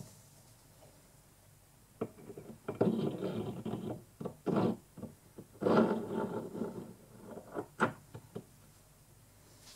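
Steel quick change tool post body being slid by hand over a freshly turned steel shaft for a test fit: irregular metal scraping and rubbing with a few sharp clicks, starting about two seconds in and stopping near the end.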